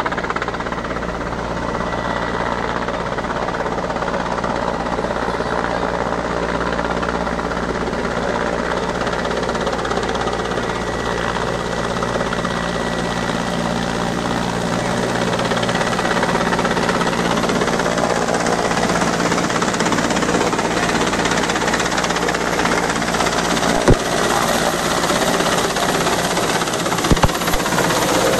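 Military transport helicopter's rotor and turbine noise, steady and slowly growing louder as it approaches. A few sharp knocks come near the end.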